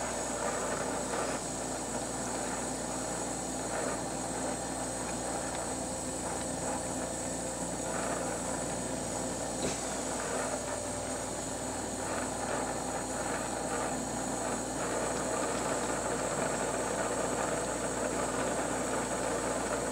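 Glassblowing bench torch flame hissing steadily while hot glass is worked in it, with a steady low hum underneath.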